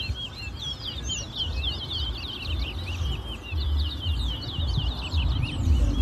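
Caged male towa-towa (chestnut-bellied seed finches) singing a rapid, unbroken string of chirps and trills: competition song in a bird-singing race. A low gusty rumble runs underneath.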